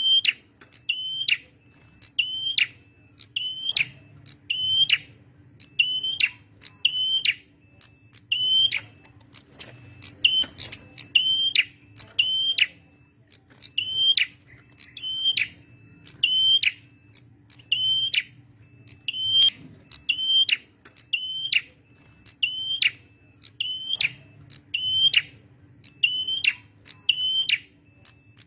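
Male prenjak merah calling vigorously: one sharp, high chirp with a quick downward flick, repeated evenly about every 0.7 seconds without a break, over a steady low hum.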